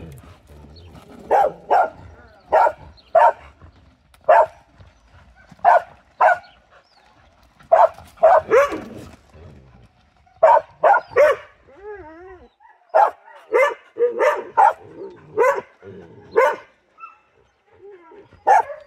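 A herding dog barking at sheep in short, sharp barks, about twenty of them, some single and some in quick runs of two to five, with a brief wavering whine-like sound in the middle.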